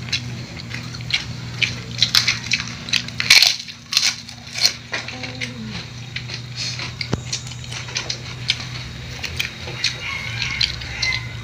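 Crisp food being bitten and crunched as several people eat by hand, with sharp clicks of plates and dishes, over a steady low hum.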